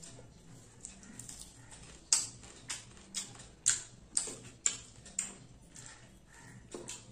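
Crisp deep-fried small fish being broken apart with the fingers, close to a lapel mic: a run of sharp crackles beginning about two seconds in, roughly two a second.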